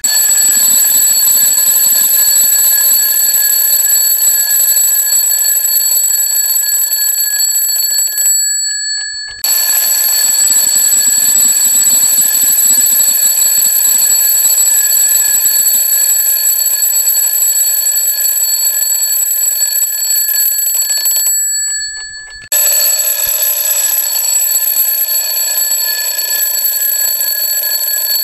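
Twin-bell mechanical alarm clock ringing: the hammer rattles rapidly against the two metal bells, giving a loud, continuous, metallic ring. It stops twice for about a second, about 8 seconds in and again about 21 seconds in, and the bells ring down before the ringing starts again.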